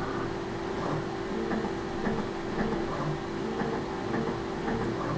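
A steady machine hum holding a few tones that shift in pitch now and then, with faint computer-mouse clicks scattered through it.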